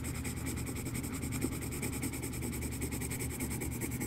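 Yellow colored pencil scratching on drawing paper, rubbed lightly in small circles, giving a quick, even run of scratchy strokes.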